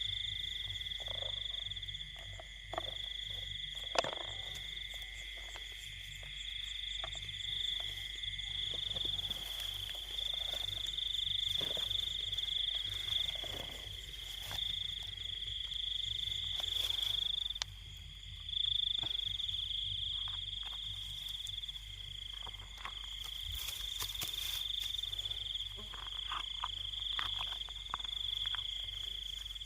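Night chorus of insects and frogs from rice fields: a continuous high-pitched insect trill over frogs calling in a steady pulsing rhythm, with a few short clicks and knocks.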